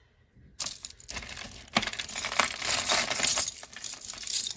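A heap of costume jewelry being shifted and gathered by hand: seed beads and metal pieces clattering and clinking in a dense run of small clicks, starting about half a second in.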